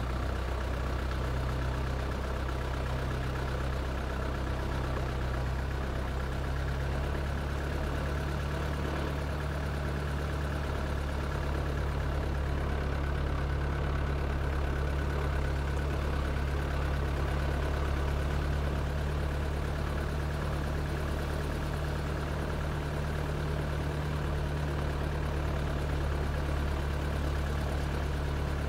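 A steady low engine hum, running at an even pitch and loudness with no revving.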